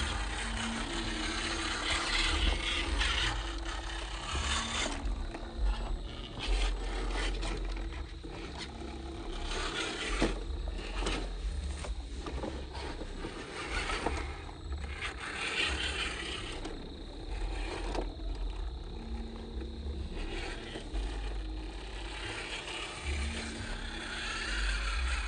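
Small electric motor and gearbox of a radio-controlled rock-crawler jeep whining on and off, with its tyres scraping and crunching over rock and dirt and a few sharp knocks.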